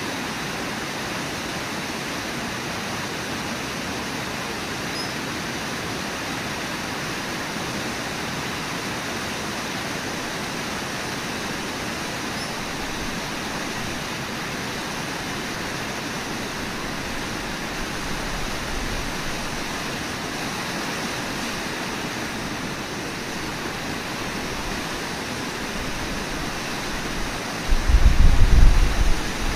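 Waterfall and whitewater rapids rushing steadily. Near the end a loud low rumble comes in over the water.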